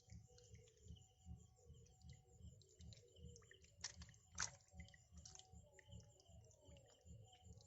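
Near silence, with faint background noise and a couple of soft clicks about four seconds in.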